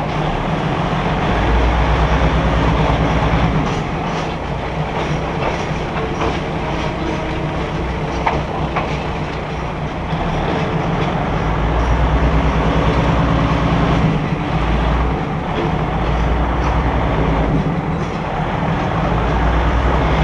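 Diesel railcar of the Maeklong line running along the track, heard from inside the carriage through an open window: a steady low engine drone that swells louder and eases off several times, with scattered clicks from the wheels on the rails.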